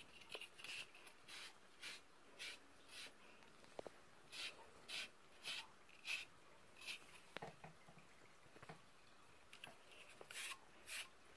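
Looped metal shedding blade drawn through a dog's coat: a run of short, faint brushing strokes, about two a second, with a brief pause near the end.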